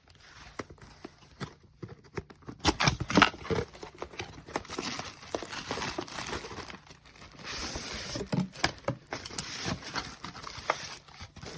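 Space heater's box being opened and its packing handled: crinkling, tearing and rustling with scattered knocks and clicks, loudest a few seconds in.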